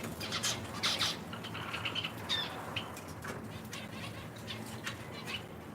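A room of small cage finches (zebra finches and Java sparrows) chirping with many short, overlapping calls, with quick flutters of wings among them.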